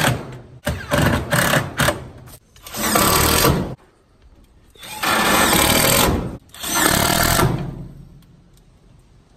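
Cordless drill/driver running in about five short bursts of a second or so each, driving screws to fasten a wire-mesh floor into a wooden cage frame; it stops near the end.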